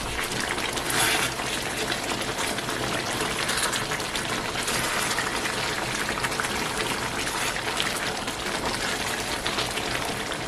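Pot of egusi pepper soup boiling on the stove: a steady hiss with fine crackles.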